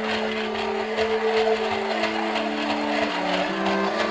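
Rhythmic chugging, steam-train style, with a slow tune of held notes that step up and down in pitch over it.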